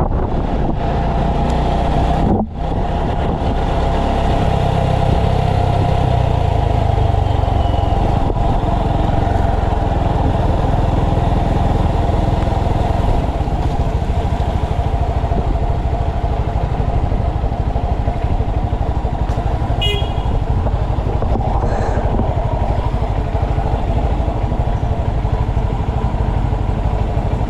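Motorcycle running at steady speed on the road, a constant engine hum and rumble. It drops out briefly about two and a half seconds in, and a short high beeping sounds about twenty seconds in.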